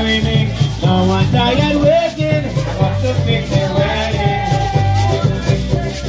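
Caribbean string band playing live: banjo and bass guitar over a steady beat from a mallet-struck drum, with a shaker-like rattle keeping time.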